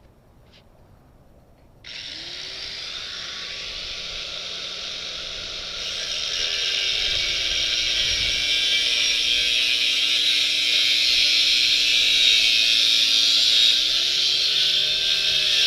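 A power tool starts up about two seconds in and cuts through the steel tube of a bicycle frame, a steady high hiss that grows louder once the cut bites. The motor's pitch sags under the load and picks up again near the end.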